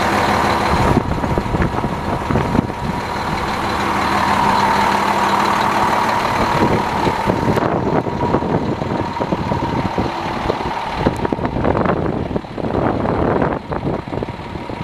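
2008 International 7600 plow truck's diesel engine idling steadily, with a steady high whine running along with it.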